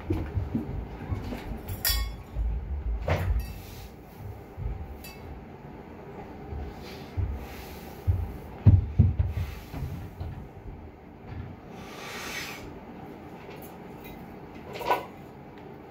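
Irregular knocks, clanks and thumps of a loaded axle bar and its plates being handled in a power rack during a seated strict press set, with sharp metal clicks and the loudest low thumps about nine seconds in.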